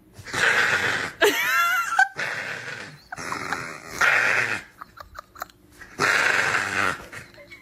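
A pet making a series of long, raspy, wheezy exhalations, with a short high squealing whine that bends up and down about a second in.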